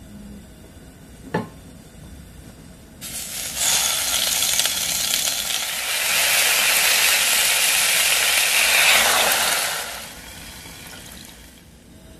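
Water being poured into a nonstick pot over raw pork belly pieces: a steady splashing rush that begins a few seconds in, grows louder, and cuts off sharply near the end. A single knock comes about a second in, before the pouring.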